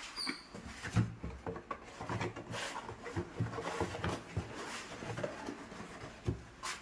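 Cardboard boxes of fireworks being handled: irregular knocks, thumps and rubbing as they are moved and set down.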